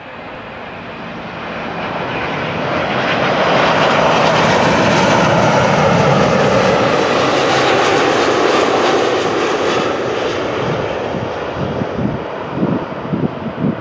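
Boeing 777-200's twin GE90 jet engines passing overhead on landing approach. The jet noise swells to a peak a few seconds in, holds, then fades with a shifting, falling whine, breaking into low crackling rumble near the end.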